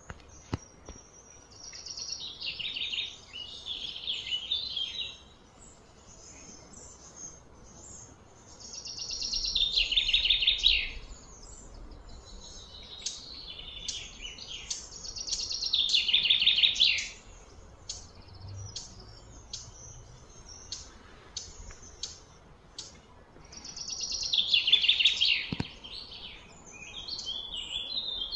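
High-pitched animal calls outdoors: a loud, rapidly pulsing phrase that builds up and then cuts off, repeated four times about every seven seconds, with short chirps in between.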